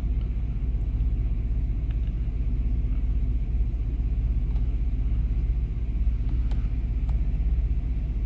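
1998 Chevrolet C1500 pickup's engine idling steadily, a low even rumble.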